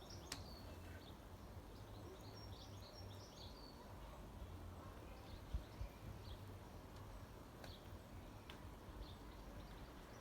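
Faint outdoor ambience: small birds chirping in short clusters of high notes over a low steady rumble, with a few faint clicks.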